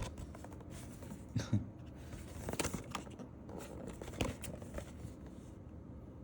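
A foil-wrapped Magic: The Gathering collector booster pack being handled, its wrapper rustling and crinkling, with a few scattered sharp crackles.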